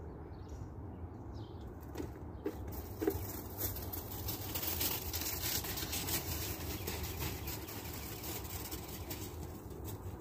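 Backyard ambience: a low steady rumble, a few bird chirps in the first couple of seconds, then a rustling crackle with scattered clicks from about two seconds in.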